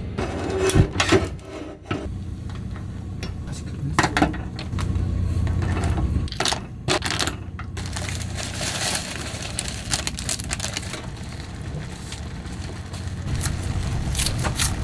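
Cooking clatter: several sharp clicks and knocks of utensils and packets, then a steady hiss of seafood broth boiling in a pan on the stove.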